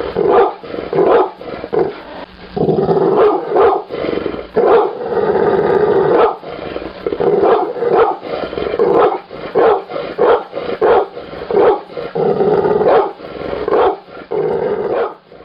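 Pit bull barking over and over in quick, dense runs, with a few longer drawn-out sounds between the barks.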